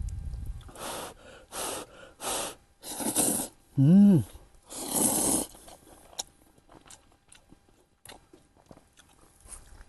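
A person slurping hot instant ramen noodles: several short slurps, a brief hum of the voice about four seconds in, and a longer, louder slurp about five seconds in, then faint chewing clicks.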